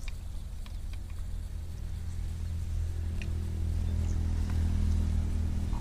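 Low, steady engine hum from a motor somewhere off, growing louder about three seconds in.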